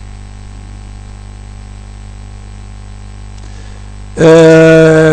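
Steady mains hum and hiss, then about four seconds in a man's voice holds a long hesitation sound, "eeeh", at one steady pitch for about a second.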